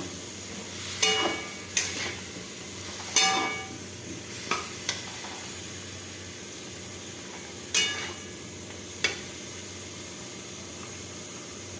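Potatoes and spice paste sizzling in a frying pan, a steady frying hiss, with a metal spoon or spatula clinking against the pan about seven times as the mixture is stirred.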